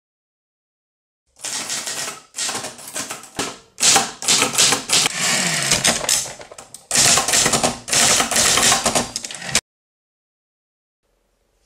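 Typewriter keys being struck in fast runs of typing, with short pauses between runs. It starts about a second in and stops abruptly near the end.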